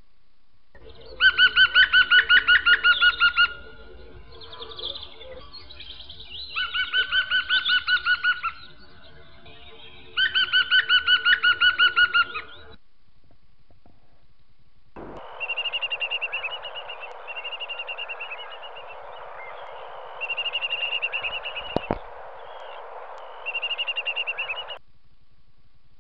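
Birdsong: three loud bursts of fast, evenly pulsed trills, then after a short gap four shorter chirping phrases over a steady hiss. The sections start and stop abruptly.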